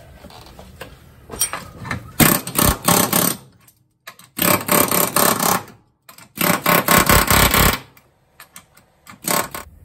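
Pneumatic air chisel with a wide bit hammering into the spot welds between a rusty steel floor pan and the rocker panel, popping them loose. It runs in three bursts of about a second and a half each, with a brief fourth burst near the end.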